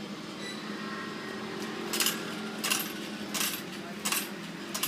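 Coins dropping one by one into a vending machine's coin slot: five sharp metallic clinks, evenly spaced about 0.7 seconds apart, starting about two seconds in, over the machine's steady low hum.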